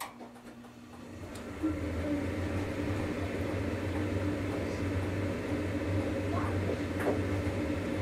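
2002 Carrier Infinity 75,000 BTU gas furnace starting up: a click, then a hum that builds over about a second and a half and settles into a steady drone.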